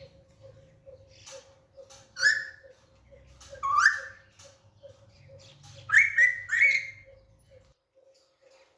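Alexandrine parakeet giving short, loud calls that rise in pitch: one a little after two seconds in, one near four seconds, then a quick pair around six seconds.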